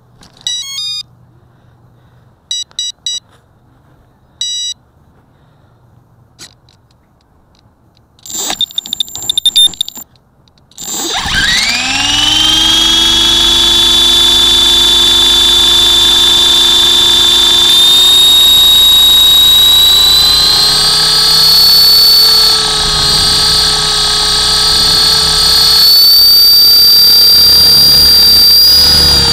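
A few short electronic beeps sound first. About eleven seconds in, a model RC helicopter's motor and rotor spool up with a quickly rising whine that levels into a steady high whine. The pitch shifts slightly as the helicopter lifts off.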